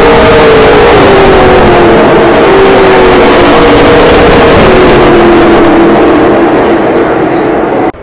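Closed-wheel race cars racing past, a loud engine drone whose pitch slides slowly lower over several seconds. It cuts off abruptly near the end.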